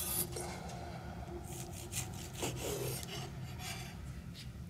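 A knife sawing through a seeded-bread sandwich in several back-and-forth scraping strokes.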